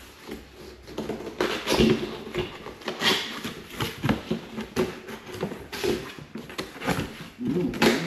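Cardboard shipping box being opened by hand: an irregular run of scrapes, rustles and knocks as the tape is worked loose and the flaps are pulled apart.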